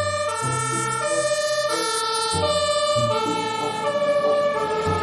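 Electronic fire-truck siren tones: buzzy synthesized notes stepping up and down between a few pitches, changing about every half second.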